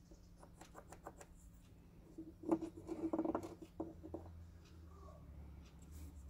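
Faint scratching and small ticks of a pointed hand tool scraping at a wooden knife-handle joint, with a louder stretch of scraping and handling knocks about two to four seconds in. A steady low hum runs underneath.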